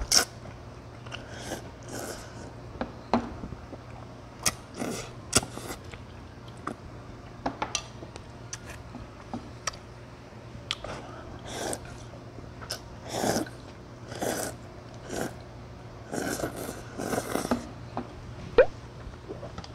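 A person eating medium-thick wheat noodles and pork broth: repeated short, loud slurps, with chewing and now and then sharp clicks of chopsticks on ceramic bowls. A steady low hum runs underneath.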